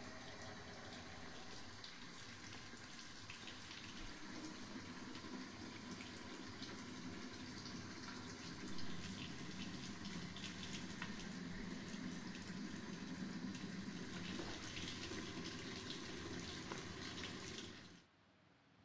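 Steady rushing noise with faint scattered clicks, cutting off abruptly near the end.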